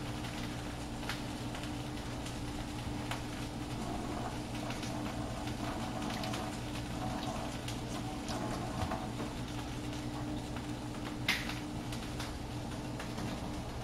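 Broccolini cooking undisturbed in a hot non-stick pan: faint sizzling and light crackles over a steady low kitchen hum, with one sharper click about eleven seconds in.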